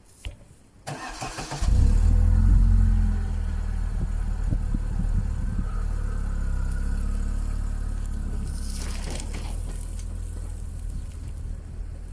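Niva Travel's engine cranked by the starter for under a second, catching and running loudly for a moment, then settling into a steady idle. A short rushing noise passes over it about nine seconds in.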